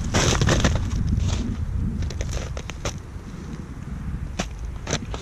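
Boots crunching and shifting in packed snow and slush at the edge of an ice-fishing hole, loudest in the first two seconds, then a scatter of sharp crunches and clicks.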